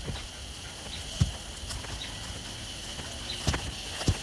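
Four scattered knocks or thumps over a steady faint high-pitched hum.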